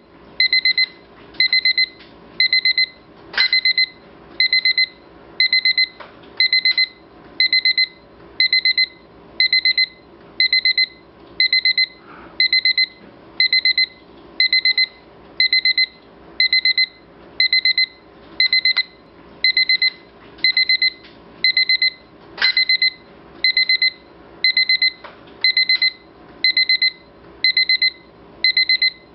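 Electronic alarm beeping: a high beep pulsing in short rapid groups, about one group a second, repeating steadily.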